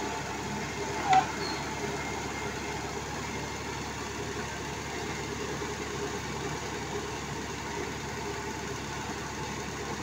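Engine running steadily at an even speed on a sand-piling (wash-boring) rig. A brief sharp sound stands out about a second in.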